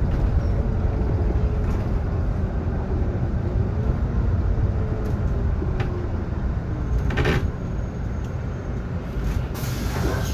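Solaris Urbino 18 IV articulated bus under way, heard from inside: a steady low running rumble with faint wavering whines. About seven seconds in there is a short creak, the kind the title puts down to the bus's squeaky articulation joint. A hiss starts near the end.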